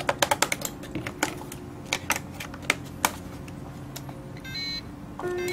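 Plastic clicks and snaps of a FlySky i6 radio transmitter being handled as batteries are fitted: a quick flurry of clicks, then a few single clicks. Near the end comes a short run of electronic beeps.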